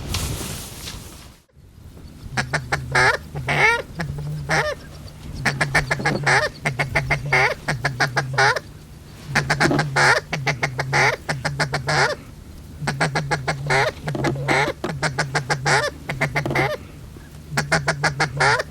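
Goose honking: short, bending calls in quick groups, repeated about once a second, after a second and a half of wind noise that cuts off abruptly.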